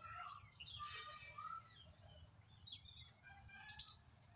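Faint birds chirping in short, scattered calls over a steady low rumble.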